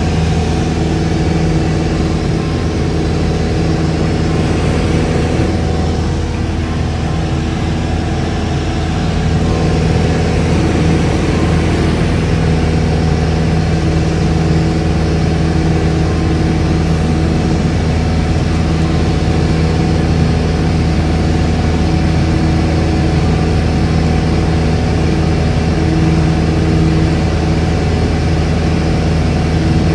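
Light aircraft's engine and propeller drone heard from inside the cabin in flight: a steady low pitched hum with a rush of air over it, growing slightly louder about a third of the way in.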